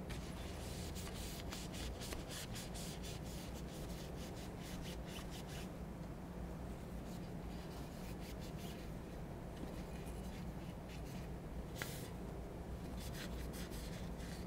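Rubbing on the outside of the steel barrel of an Eternal Attacker FX-3 12-gauge shotgun as it is wiped clean: runs of short, quick scrubbing strokes, faint.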